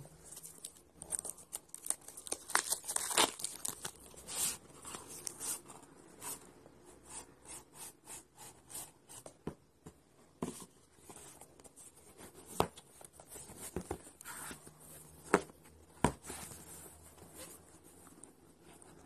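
Cardboard phone packaging handled by hand: a sleeve sliding off a box, with tearing and crinkling of paper or plastic wrap and scraping, and irregular sharp taps and knocks as the boxes are set down on the table.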